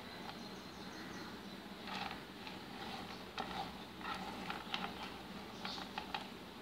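Fingers scraping and picking up hard nut pieces on a plastic cutting board: scattered light clicks and scratches, beginning about two seconds in and busiest in the second half.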